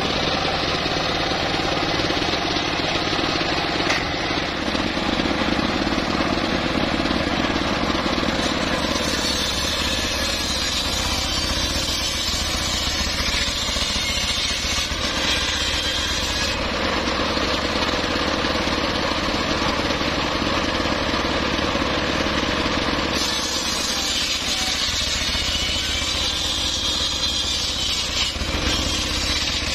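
Homemade engine-driven circular saw bench running steadily, its large blade ripping through teak logs. Twice, about a third of the way in and again near the end, the sound turns harsher and brighter as the blade bites into the wood.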